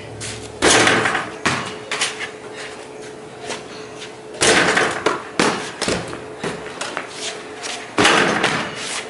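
A basketball banging off a wall-mounted hoop's backboard and rim three times, each hit rattling for about half a second. Lighter thuds of the ball bouncing on concrete fall between the hits.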